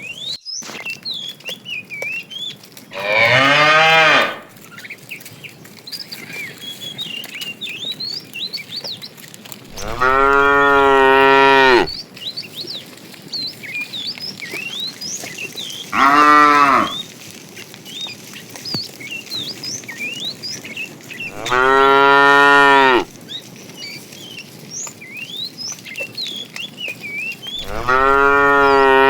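Cows mooing: five long, loud moos several seconds apart, the last one still going at the end.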